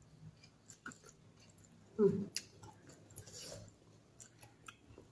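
A person chewing a mouthful of rice and curry, with small wet clicks and mouth noises and one louder short sound about two seconds in.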